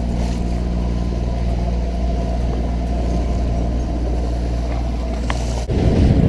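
A sailboat's engine running steadily under way while motor sailing, a constant low hum. It breaks off abruptly near the end and gives way to a rushing noise.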